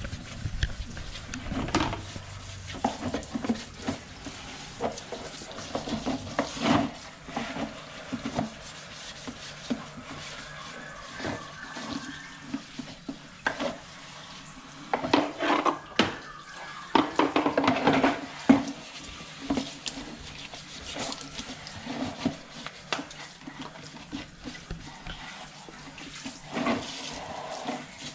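Irregular splashing of water with clatter and knocks of things being handled and washed.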